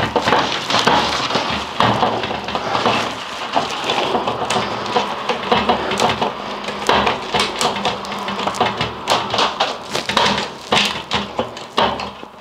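Plastic dust-barrier sheeting crinkling and a corrugated ducting hose rustling as they are handled, with irregular clicks and knocks while the hose is pushed onto and screwed to an air-filter unit.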